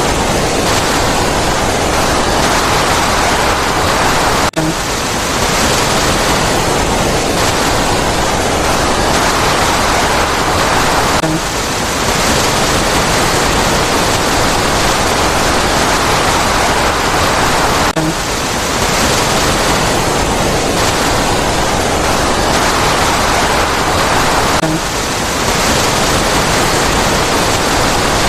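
River water rushing steadily, a dense, loud, even flow, with a brief dip in level about every seven seconds.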